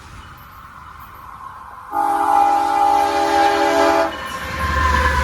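CSX freight locomotive's air horn giving one long chord-like blast of about two seconds, starting about two seconds in. It is followed by the rising rumble of the train approaching.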